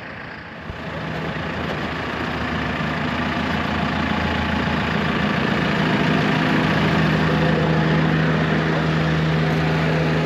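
Diesel engine of a JCB wheel loader running, growing louder over the first few seconds and then running steadily.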